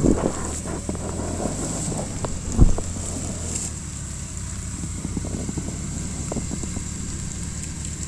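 UAZ off-roader's engine idling steadily, with clicks and crackles in the first second and a single loud thump about two and a half seconds in.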